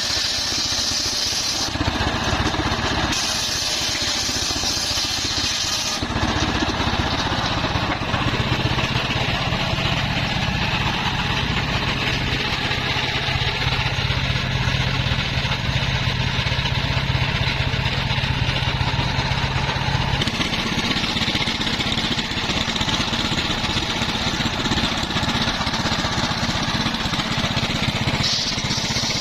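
Engine of a portable circular-saw sawmill running steadily. A higher hiss switches on and off a few times in the first six seconds and comes back near the end.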